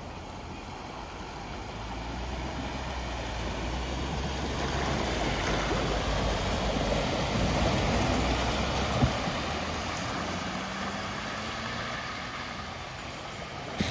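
A vehicle's engine running as it drives through deep ford water, with the rush of water pushed aside by the vehicle growing louder toward the middle and easing off near the end. A single short knock sounds about nine seconds in.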